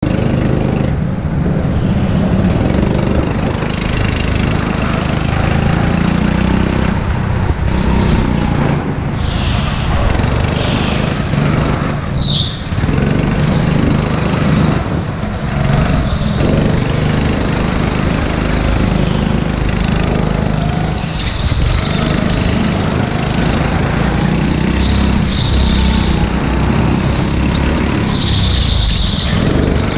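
Go-kart engine running under load, rising and falling in pitch as the kart drives through corners, with a brief high squeal about twelve seconds in.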